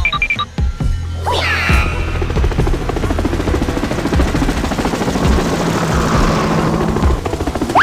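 Background music with steady low bass notes under a dense, fast rattling noise that comes in about two seconds in; a brief sliding tone sounds just before it.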